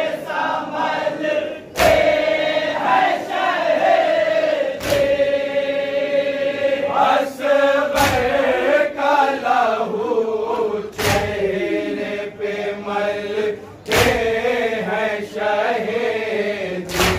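Men chanting a Muharram nauha (lament) together in unison, with a loud collective chest-beating slap of matam about every three seconds, six times.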